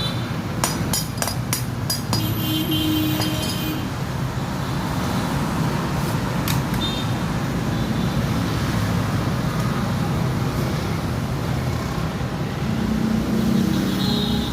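Steady background road-traffic noise, with a few sharp clicks in the first four seconds.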